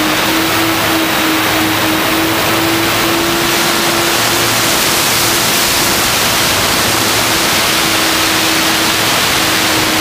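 Model airplane in flight, heard from its onboard camera: a loud, steady rush of wind over the microphone, with the motor and propeller drone held at one pitch that wavers slightly and dips a little near the end.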